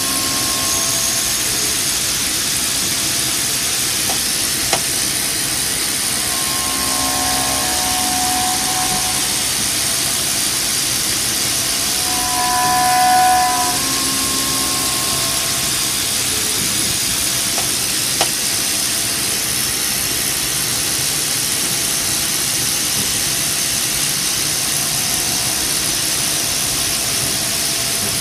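CNC milling machine's end mill cutting linen phenolic: a steady hiss with the spindle running, and a pitched cutting tone that comes in twice as the cutter bites, loudest about halfway through. Two brief clicks.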